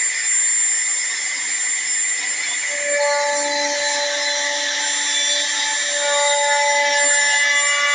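Electric plunge router running at full speed with a steady high whine, its bit routing along the edge of a wooden board; further tones join the whine about three seconds in as the cut goes on.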